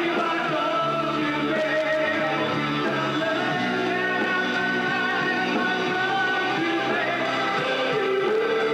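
Rock band playing live, with drums, bass, electric guitar and keyboards and a voice singing over held chords.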